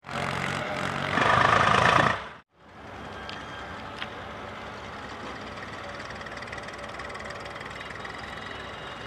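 Diesel tractor engines running steadily as loaded tractor-trolleys drive along, after about two seconds of louder, closer engine noise that cuts off abruptly.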